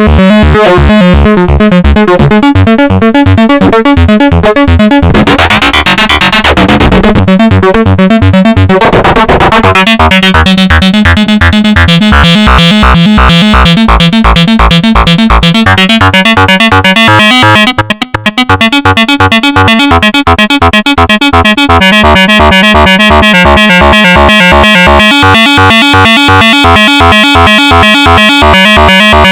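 Make Noise 0-Coast synthesizer playing a loud, fast arpeggio of repeated notes, about five a second, sequenced by the Cthulhu arpeggiator. Between about five and ten seconds in the notes blur into a swelling wash, and the sound briefly thins about eighteen seconds in.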